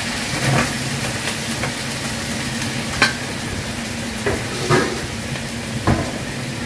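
Sliced cucumber and carrot sizzling in a frying pan as they are stirred, with several sharp knocks of the utensil against the pan.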